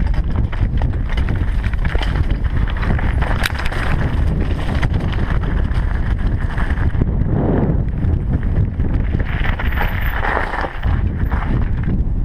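Mountain bike riding fast over a rocky trail and loose gravel: wind buffeting the camera microphone, with the tyres crunching over stones and the bike rattling and knocking over the rough ground.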